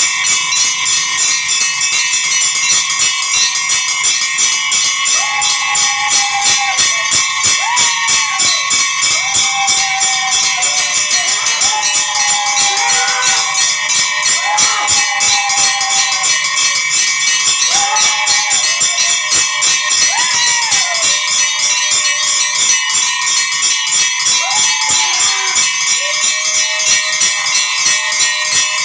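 Temple bells ringing in a fast, continuous rhythm. From about five seconds in, a singing voice comes in over them with held, rising phrases.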